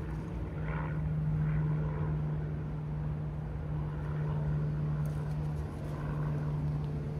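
A steady low mechanical hum, like a motor or engine running, holding one low tone throughout.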